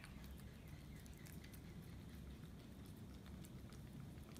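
Dog licking a lickable treat from a squeezed pouch held out by hand: faint, quick, irregular wet clicks of its tongue.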